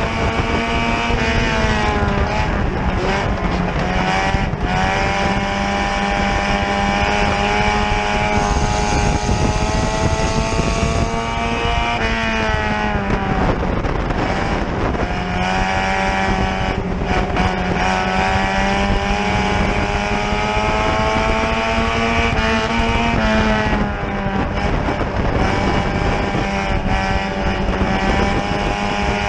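Front-wheel-drive dirt-track race car's engine heard from inside the cockpit, running hard at high revs. The revs fall and climb back three times, over a steady rush of tyre and wind noise.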